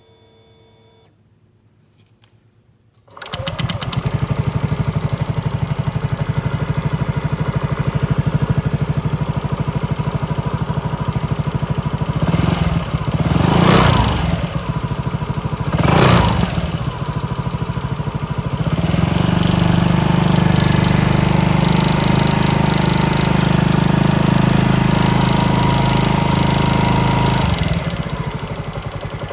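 SYM DRG scooter engine starting about three seconds in and idling, blipped twice on the throttle, then held at a raised steady speed for several seconds before dropping back to idle. The owner hears an abnormal noise in the engine as it runs.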